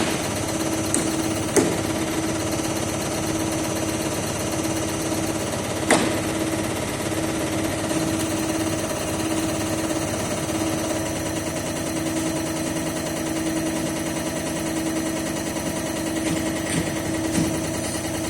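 Diesel injector test bench running a CAT 3412E injector test: a rapid, steady mechanical clatter of fast ticks over a constant hum, with an occasional sharper click.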